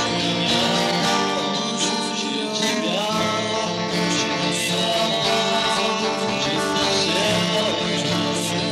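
Music: a guitar-led band recording with bass guitar, playing steadily, with some gliding, bent notes.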